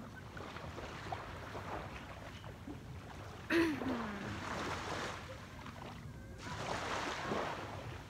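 Waves and wind noise on the microphone. A short, loud sound with a falling pitch comes about three and a half seconds in, and a swell of wash rises near the end.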